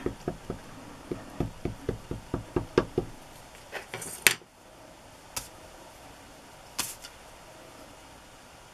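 An ink pad dabbed repeatedly onto a rubber stamp on a clear acrylic stamping block, making quick light knocks of about five a second that stop after about three seconds. A few single sharp clicks follow as the pad is set down and the block is pressed onto paper.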